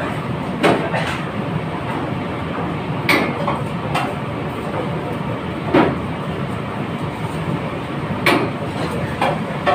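Busy kitchen noise: a steady rush, with scattered knocks and clanks every second or few, the sharpest about three, six and eight seconds in.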